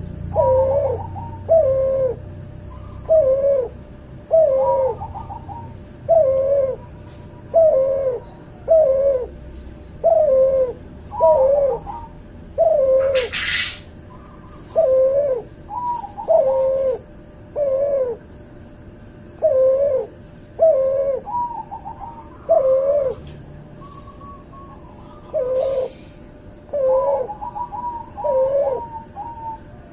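Cuhu hybrid dove (white albino turtle dove crossed with puter pelung) cooing over and over: short two-part coos, a higher note dropping to a lower wavering one, about one a second, with a couple of short pauses. A brief rasp of noise cuts in about halfway through.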